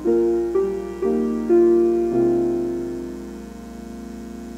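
Piano accompaniment to a hymn playing a short instrumental phrase: about five notes or chords struck in the first two seconds, then a held chord slowly fading away.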